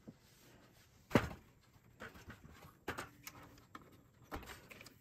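Handling noise inside a Macintosh II case as the internal shield and motherboard are worked loose: a few separate knocks and clicks, the loudest about a second in.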